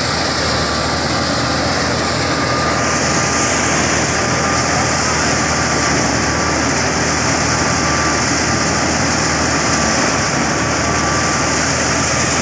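Stationary wheat thresher belt-driven by a FIAT 640 tractor, running steadily under load while wheat is fed in. A loud, dense machine noise sits over the tractor engine's low steady drone, with a thin steady whine.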